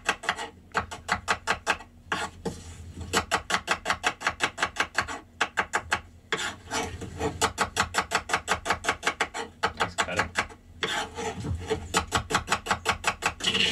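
Kitchen knife rapidly slicing red onions against a wooden chopping board, about six or seven strokes a second, in runs broken by short pauses.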